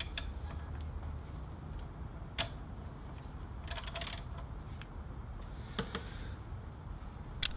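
A few sharp metallic clicks and taps of a socket wrench being worked onto the bolts of an engine's thermostat housing, with a short run of clicks about four seconds in.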